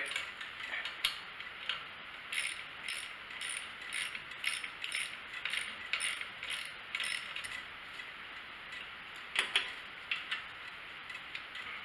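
Socket ratchet clicking in repeated short strokes as a bolt is backed out on a small engine, with a couple of louder metal clacks near the end.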